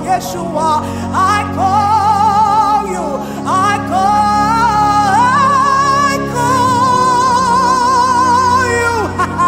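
Wordless worship singing: long held notes with wide vibrato, several sliding up into pitch, over sustained chords. The last note falls away just before the end.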